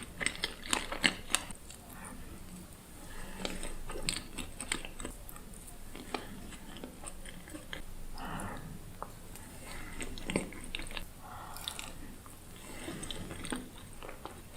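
Close-miked mukbang eating of profiteroles: bites and chewing with sharp wet mouth clicks, densest and loudest in the first second and a half.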